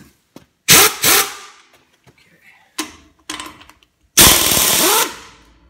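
Modified pneumatic impact wrench hammering on a lug nut, trying to break loose a nut tightened with a stronger impact gun at its lowest setting. Two short bursts come about a second in, then a few brief blips, then a longer burst of just under a second near the end, each fading out after the trigger is released.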